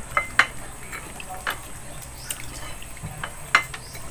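Eating sounds of people eating by hand: wet smacking and chewing, with a few sharp clicks, the loudest just after the start and again near the end.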